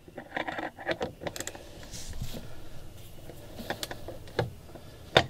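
Small ratchet wrench clicking irregularly while a nut is worked on an outboard mounting bolt, along with light tool-handling clicks and one sharp click near the end.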